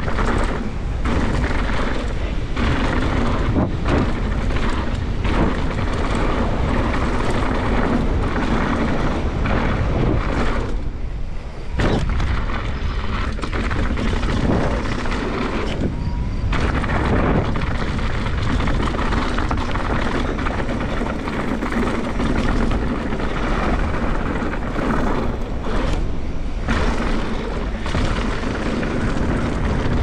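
Wind buffeting the action camera's microphone over a mountain bike's knobby tyres rumbling and chattering on a packed-dirt trail at speed. About eleven seconds in the noise drops for a moment and ends in a sharp thump.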